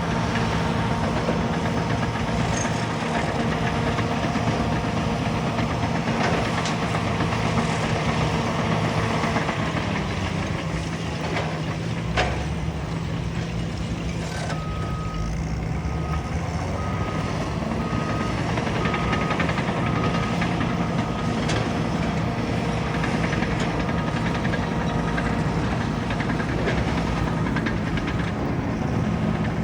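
Caterpillar bulldozer's diesel engine running steadily under work, with a single sharp clank about twelve seconds in. About halfway through, its reversing alarm sounds a row of about nine short beeps, signalling that the machine is backing up.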